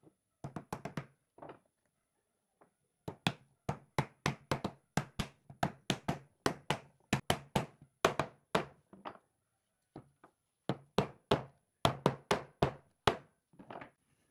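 Wooden mallet knocking on pine pallet boards, a steady run of strikes about three a second with a short break partway through, driving the top rail of a chair back down onto its slats.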